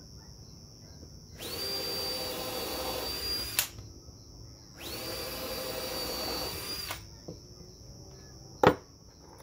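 Cordless drill boring holes into pine, two runs of about two seconds each with a steady high motor whine, followed near the end by a single sharp knock.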